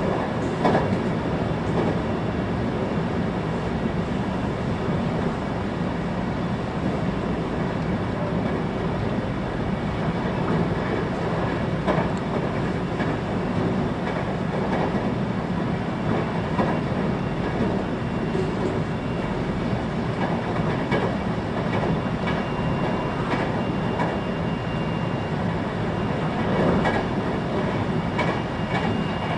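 Inside a 521-series electric train car at running speed: a steady rumble of wheels on the rails, with occasional faint clicks from rail joints.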